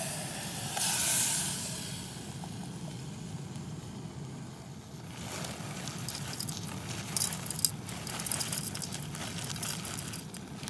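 Canned chili poured into a hot pot on a gas canister stove, sizzling loudly as it hits the pan about a second in, over the steady rush of the burner. From about five seconds in, a plastic noodle packet crinkles as dry crumbled instant noodles are shaken out onto the chili, in quick rustling ticks.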